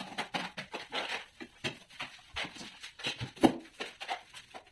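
Hand trowel scraping mortar across a concrete countertop in short, repeated strokes, about two or three a second, with one sharper knock about three and a half seconds in.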